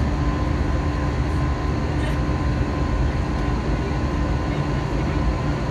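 Cabin noise of an Airbus A321-200 climbing after takeoff: a steady, deep rumble of engines and airflow heard from a window seat, with a couple of steady hums over it.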